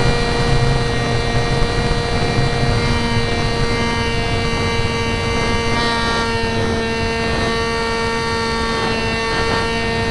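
Skyjet RC plane's electric pusher motor and propeller in flight, heard from a camera mounted on the airframe: a steady whine with many overtones over a rush of wind.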